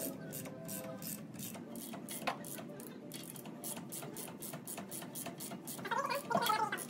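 Hand ratchet wrench clicking rapidly, about four to five clicks a second, as it is swung back and forth to run a nut down on a front wheel hub. There is a single sharp knock about two seconds in.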